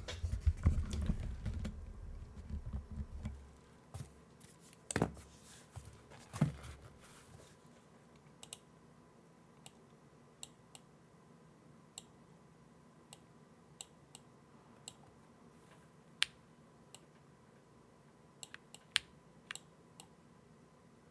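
Akko M1 V5 mechanical keyboard with Akko Cilantro tactile switches being handled with some low knocks, then single keys pressed one at a time, scattered roughly once a second rather than typed in a run.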